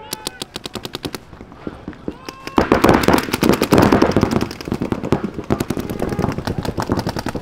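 Paintball markers firing rapid strings of shots, about ten a second. The fire grows heavier and denser, with several markers overlapping, about two and a half seconds in, then thins out.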